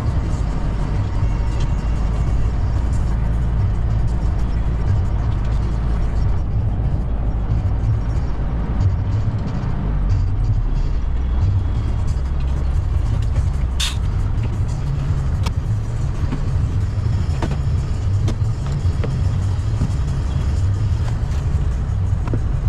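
Heavy truck driving at steady speed, its engine and road noise making a continuous low drone in the cab, with a few brief clicks and knocks, the sharpest about fourteen seconds in.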